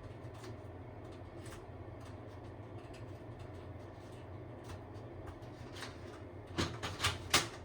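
Steady low background hum with faint scattered ticks, then three or four sharp knocks close together about six and a half seconds in.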